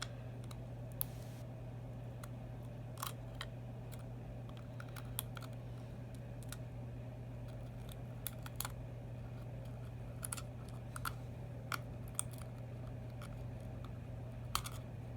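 Scattered light clicks and taps of a small hand tool working against the phone's small parts as the microphone is pried and peeled off its housing, irregular and a few seconds apart, over a steady low hum.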